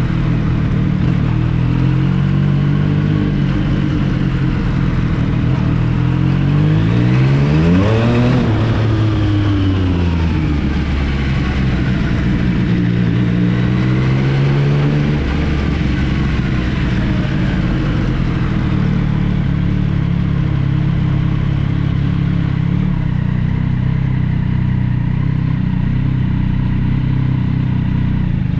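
Yamaha MT-09 SP's inline three-cylinder engine running through an Akrapovic exhaust. Its note climbs for several seconds to a peak about eight seconds in, drops back, rises a little again, then holds a steady note.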